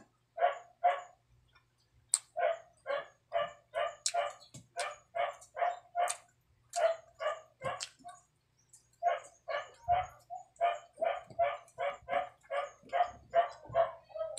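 A dog barking over and over, about three barks a second, with two short pauses.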